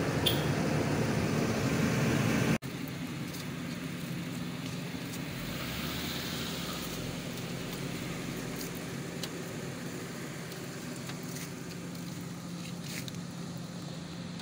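Steady low hum of a running motor. It is louder and rougher for the first two and a half seconds, then cuts abruptly to a quieter, even hum.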